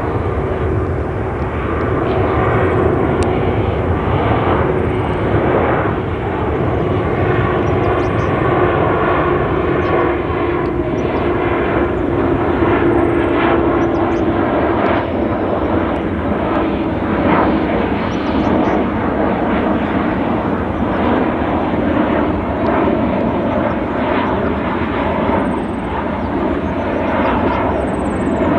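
Boeing 787-9 Dreamliner's jet engines running, a loud steady rush with a hum that slowly sinks in pitch.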